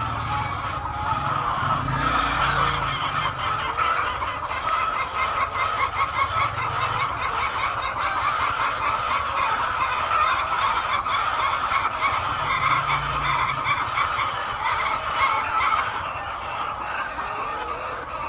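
A large flock of poultry calling all at once: a steady, dense chorus of many overlapping bird calls.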